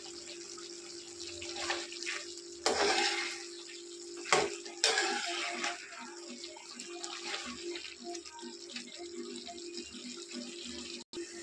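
Chopped tomatoes sizzling and bubbling in their juice in a metal kadai, with a steady low hum underneath. A metal skimmer spoon scrapes through them about three seconds in and twice more around four to five seconds in.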